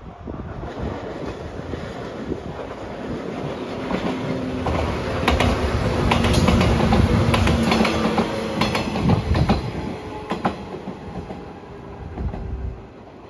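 JR 115 series electric local train passing close by, its wheels clacking over the rail joints. It grows louder to a peak about six seconds in, then fades as it draws away.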